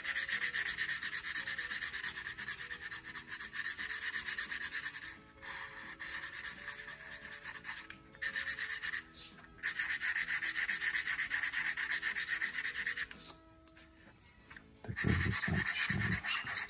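Felt-tip marker scribbling quickly back and forth on paper while colouring in a filled area: runs of rapid scratchy strokes, broken by short pauses and a longer pause about 13 seconds in.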